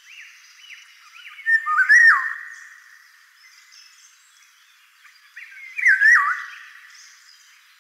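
Eurasian golden oriole singing: two loud, fluting whistled phrases that glide up and down in pitch, about a second and a half in and again about five seconds in. Other small birds chirp faintly and higher-pitched behind it.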